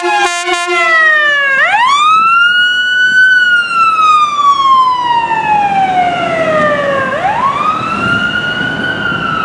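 Siren of a 2014 Dodge Ram 4500 rescue ambulance wailing as it responds: two slow cycles, each a quick rise in pitch followed by a long falling glide. A brief horn blast sounds near the start, and the truck's engine and tyre noise grow toward the end.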